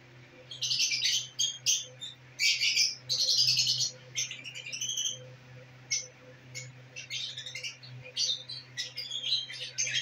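Caged lovebirds chirping: clusters of short, shrill calls, loudest and densest about two to four seconds in, with sparser calls after. A faint steady low hum runs underneath.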